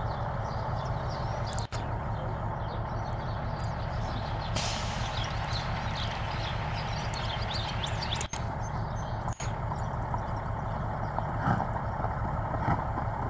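Steady low rumble of a truck engine running, with faint hoofbeats of a mule walking on pavement.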